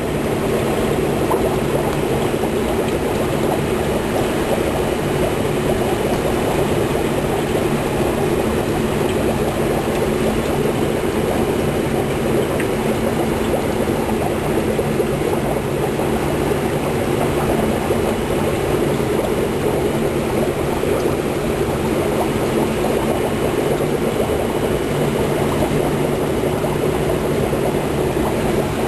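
Aquarium equipment running: a steady low hum with water trickling and splashing, unchanging throughout.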